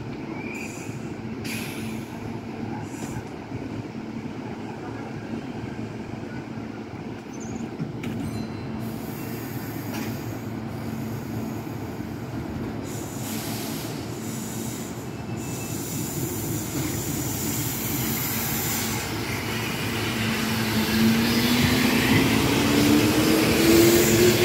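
A blue-and-white Kintetsu electric train hums steadily while standing at the platform, then pulls away. As it gathers speed, its running noise grows louder and a whine rises steadily in pitch from about 21 seconds in.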